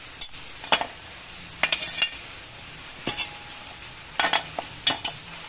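Scattered light metallic clicks and clinks from small drum brake parts and hand tools being handled, one ringing briefly about three seconds in.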